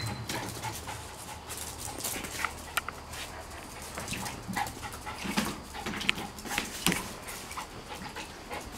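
Golden retriever puppy splashing about in a shallow plastic paddling pool, with quick, irregular slaps of water and short dog sounds among them.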